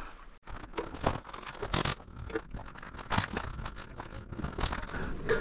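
Footsteps crunching and scraping over broken brick rubble and plaster debris, an irregular string of gritty crunches and clicks.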